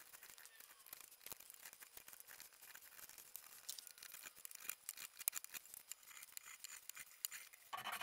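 Faint scraping ticks of a chisel and then a small hand plane shaving thin curls of wood off a chair's back splat. Near the end, hand sanding of the wood starts, a louder, steady rubbing.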